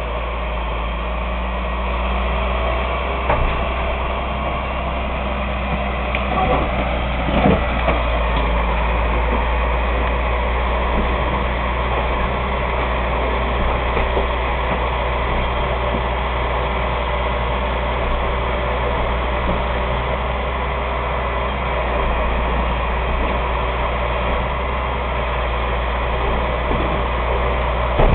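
Heavy truck engine running steadily while it drives a hydraulic grapple crane hoisting a van body, with a couple of short metal knocks about 3 and 7 seconds in.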